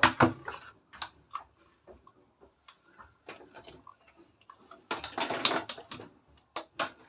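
Small plastic toy kitchen pieces being handled, clicking and tapping against each other at irregular intervals, with about a second of rustling and scraping near the end.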